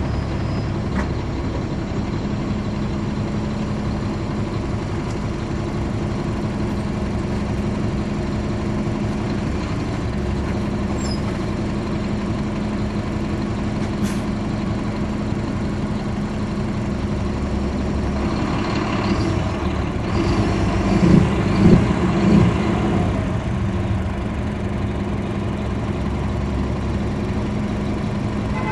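Caterpillar C13 ACERT inline-six diesel of a 2009 NABI 40-SFW transit bus, heard from inside the cabin at the rear, running steadily at an unchanging pitch with the radiator fans off. About twenty seconds in, a louder, noisy stretch lasts a few seconds.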